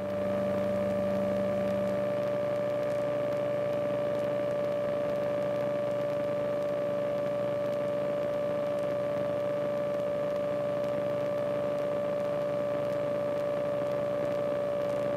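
Steady cockpit drone of a KR-2S homebuilt light aircraft climbing under power. It is an even, unchanging hum with one fixed whine running through it.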